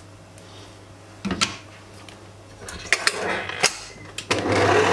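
A utensil knocks and scrapes against a stainless steel mixing bowl a few times. Then, near the end, an electric mixer's motor starts and runs loud and steady as it mixes flour into a mashed oat batter.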